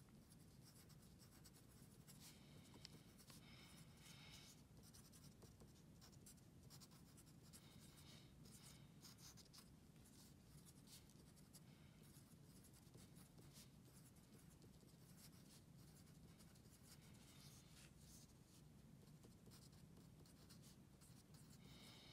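Faint scratching of a wooden pencil writing on paper, in short runs of strokes with brief pauses between words.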